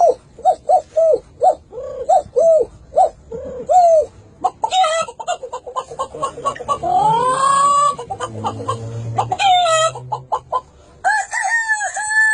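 A man imitating chickens with his voice: a fast run of short clucks for about four seconds, then a busier stretch of cackling with a rising call, and near the end a long rooster-like crow.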